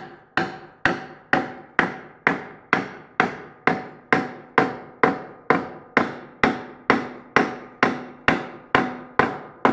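Hammer striking a steel lathe drive center, about two evenly paced blows a second, each with a short metallic ring, seating the center's spurs into the end of a wood blank.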